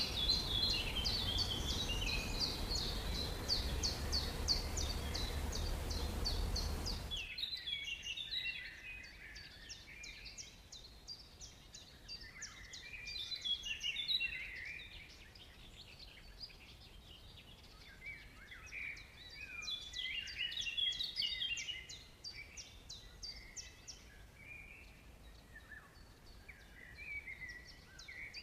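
Several birds calling in rainforest ambience. For the first seven seconds, rapid repeated high chirps ride over a steady rushing noise; then the noise cuts off suddenly, leaving a mix of varied chirps and short whistles.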